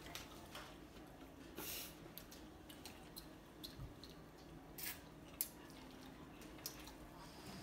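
Quiet eating at a table: a few short moist smacks of chewing and light clicks of chopsticks against plates.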